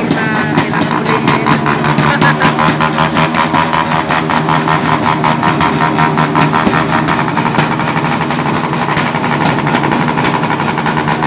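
Motorcycle engine running steadily through a loud aftermarket muffler, its exhaust beats coming as a rapid, even pulse.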